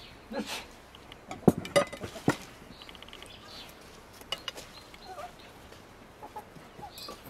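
Metal fork and spatula clinking against ceramic plates as fish is served onto rice, several sharp clinks about one and a half to two and a half seconds in. A few short animal calls sound in the background.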